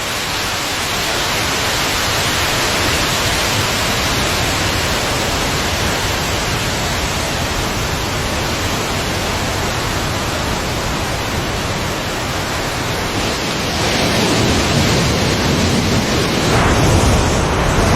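Waterfall: a steady rush of falling water, growing louder about 14 seconds in and again near the end.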